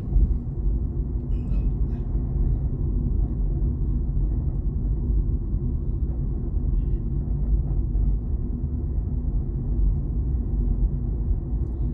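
Steady low rumble of a car driving, heard from inside its cabin: engine and road noise.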